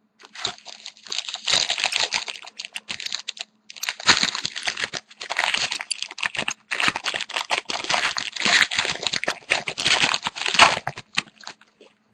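Trading cards and a pack wrapper being handled: crinkling and quick runs of clicks as cards slide and flick against each other, broken by a couple of short pauses.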